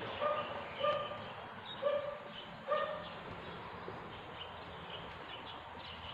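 A dog barking four times in short, evenly pitched barks within the first three seconds.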